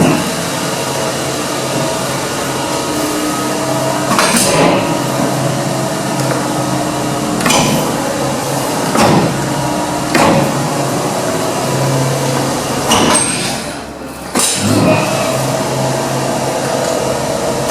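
Platform lift running: a steady motor hum with several knocks and clunks. The hum drops briefly about fourteen seconds in, then starts again.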